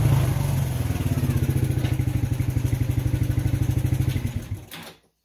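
Small ATV engine running steadily close by as the quad drives past, with an even pulsing beat. It falls away near the end.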